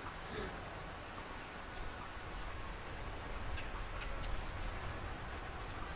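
Savanna ambience: a steady, faint high insect drone, with a few scattered clicks or chirps about two and four seconds in.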